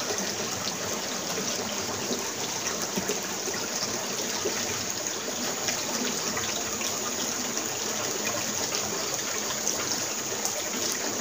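Steady rush of river water running, an even noise with no breaks.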